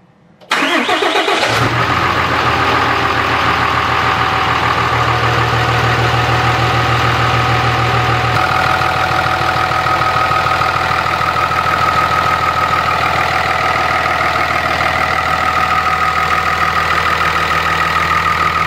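A 6.7 Cummins inline-six turbodiesel is started for the first time after an S&B cold air intake was fitted. It catches about half a second in, runs rough for a moment, then settles into a steady idle with a thin steady whine above it. The idle eases slightly about eight seconds in.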